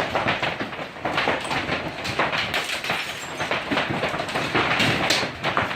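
Hailstones striking hard surfaces: a dense, irregular clatter of many small knocks over a steady rushing noise.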